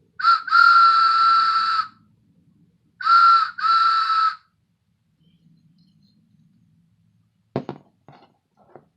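Toy train whistle blown in two pairs of toots: a short toot then a long one, then about three seconds in two shorter toots, each on one steady high pitch. A sharp knock and a few small clicks near the end.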